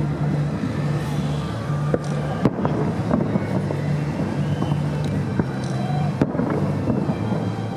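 Fireworks going off, with several sharp bangs; the loudest come about two and a half and six seconds in. Under them runs a steady low hum with a murmur of background noise.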